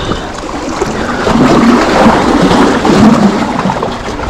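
Water splashing and gurgling around a hooked fish as it is played and drawn in toward the bank.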